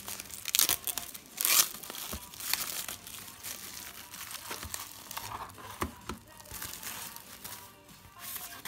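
Clear plastic shrink-wrap being torn and peeled off a CD case, crinkling in irregular bursts that are loudest in the first two seconds and smaller after that.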